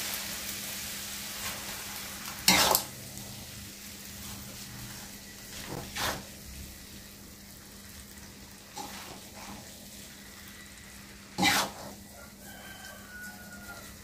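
Rice vermicelli sizzling quietly in a wok over a low gas flame, the hiss slowly fading. A metal spatula scrapes and knocks against the wok as the noodles are tossed, three times sharply and once more softly.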